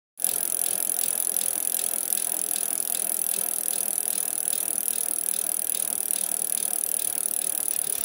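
A steady, fast clicking rattle with a high hiss. It starts and stops abruptly, about eight seconds long.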